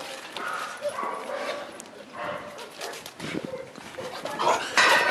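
Presa Canario dogs whining and yipping in short calls, with a louder high yelp near the end.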